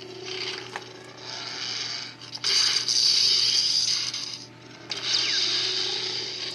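Lightsaber soundboard from a Star Trader build-your-own lightsaber playing through its speaker: a steady hum with two long bursts of loud hissing clash sound, the first about two and a half seconds in and the second about five seconds in.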